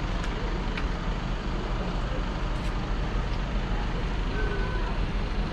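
Idling diesel tractor engines: a steady low rumble that does not change.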